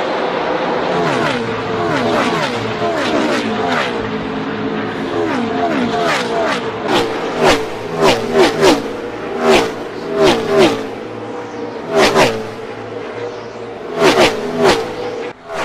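NASCAR Gen 6 V8 stock cars racing past at speed, one engine note after another dropping in pitch as each car goes by. From about six seconds in, single cars flash past close and loud in short, sharp pass-bys.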